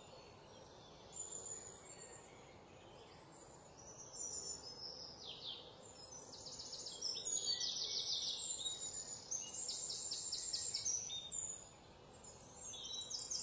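Birds singing: high chirps and rapid trilled phrases, sparse at first and busiest from about four seconds in until near the end, over a faint steady background hiss.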